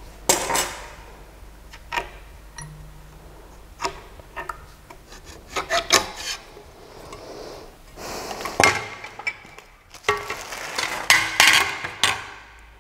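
Irregular handling noises as a flat plate and other objects are rubbed, shifted and set down on a 3D printer's bed and a cluttered workbench, with scattered knocks and clatters.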